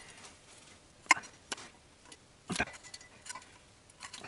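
A wrench clicking on the intake-manifold bracket nuts as they are tightened to about 25 N·m: a few scattered sharp metal clicks, the loudest about two and a half seconds in.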